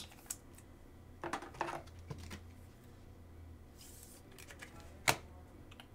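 Soft plastic handling as a trading card is slid into a clear penny sleeve and a rigid top loader: faint rustles, a short swish of plastic sliding about four seconds in, and one sharp click about five seconds in.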